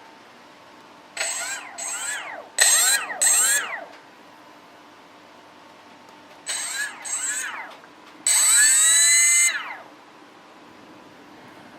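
A small electric motor spun up in short bursts, its pitch rising then falling each time with a high whine over it: two pairs of quick bursts, one more pair, then a longer burst near the end.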